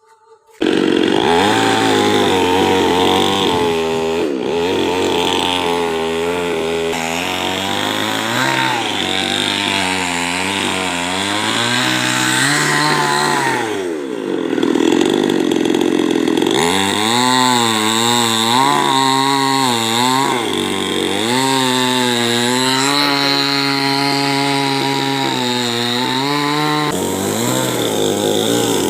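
Chainsaw cutting a coconut tree trunk. It comes in suddenly about half a second in and runs loud, its engine pitch rising and falling again and again as it is revved and worked through the wood.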